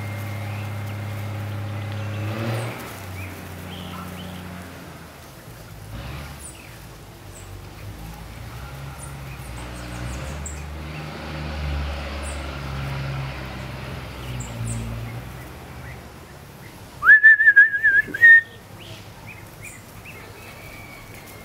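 Chow chow puppy whining: one loud, high, wavering whine about a second long with a short yelp right after, about three-quarters of the way in. A steady low hum runs at the start, and faint high chirps are scattered throughout.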